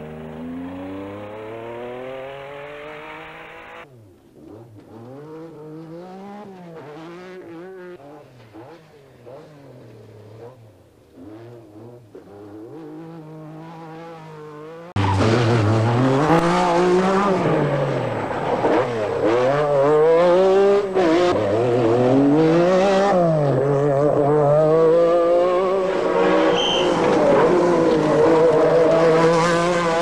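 MG Metro 6R4 rally car's 3.0-litre V6 at full throttle, its pitch rising through the gears and falling on the lift-offs and shifts. It goes quieter after about four seconds and much louder from about halfway.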